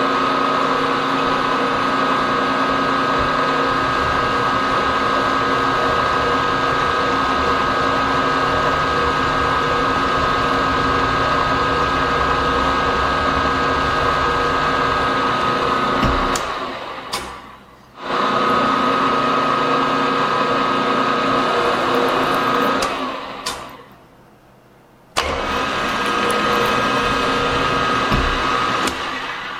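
Vertical milling machine running steadily with a whine, its spindle driving a countersink that cuts chamfers into the holes of an aluminum plate. Twice the machine winds down and falls quiet, then the running sound comes back abruptly.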